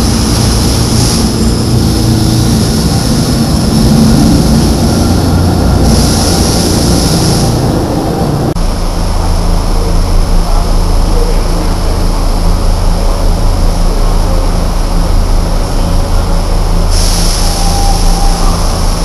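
A SEPTA light-rail trolley standing in an underground station with its equipment running, a dense steady rumble. About eight and a half seconds in, the sound cuts to a subway train standing at a platform with its doors open, a steady low electrical hum, with a hiss near the end.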